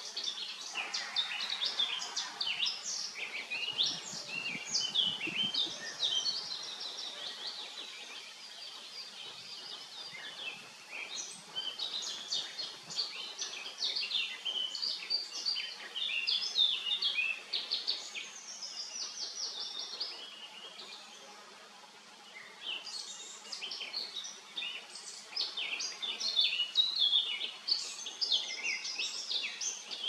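Songbirds singing continuously, a dense stream of quick high chirps and trills, with a short lull about two-thirds of the way in. Underneath is a faint buzz of honeybees flying at the hive entrance.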